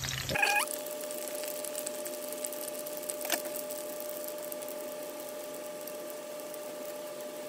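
Fish and greens fritters frying in shallow oil in a stainless steel skillet, a fine steady crackle, with a steady hum underneath. A single sharp click about three seconds in.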